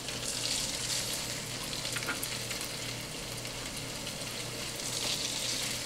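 Raw chicken breast strips sizzling in hot olive oil in a nonstick frying pan as they are laid in. The hiss is steady and swells twice, about half a second in and again near the end.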